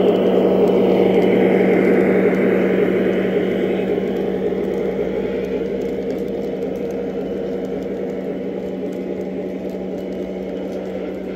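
Lionel Legacy NW2 O-gauge model locomotive and its freight cars rolling past on three-rail track: a steady hum with wheel and rail noise. It is loudest in the first few seconds as the locomotive goes by, then fades slowly as the freight cars roll past.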